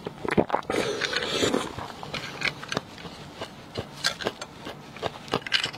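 Small metal spoon scraping roasted beef bone marrow out of a split bone, with close-up mouth sounds of eating and many short sharp clicks.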